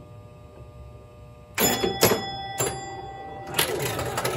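1968 Williams Lady Luck electromechanical pinball machine in play: a faint steady hum, then about a second and a half in, sharp strikes with ringing chime tones, three in about a second. From about three and a half seconds in comes a busy run of clacks and ringing chimes as the game scores.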